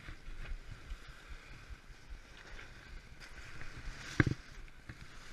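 Wind and water rushing past a sailboat's bow as it moves under way, with a single sharp thump about four seconds in.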